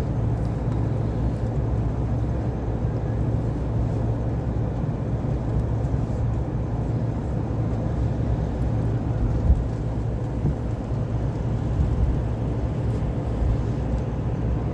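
Steady low rumble and hum inside a commuter train car, with one short thump about nine and a half seconds in.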